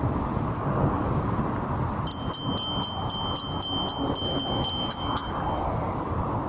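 Bicycle bell rung rapidly, about fourteen bright dings at roughly four a second, starting about two seconds in and stopping a little past five seconds. Under it is a steady low rumble of wind and riding noise.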